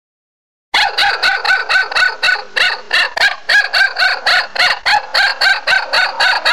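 Small dog yapping rapidly and evenly, about four high yaps a second, starting sharply about a second in and cutting off abruptly.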